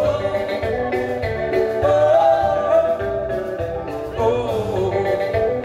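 Live band music: a melodic lead line over bass and drums.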